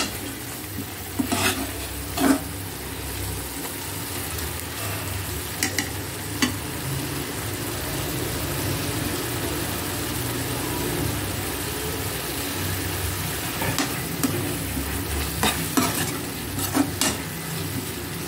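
Thick tomato curry base sizzling steadily in a metal pan while a metal spoon stirs it, scraping and clinking against the pan a few times, with a run of clinks near the end.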